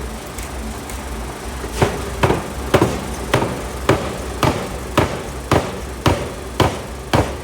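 750 kg pneumatic forging hammer striking a hot steel block: after a couple of seconds of light taps over a low steady hum, a steady run of heavy blows sets in, about two a second, each ringing briefly.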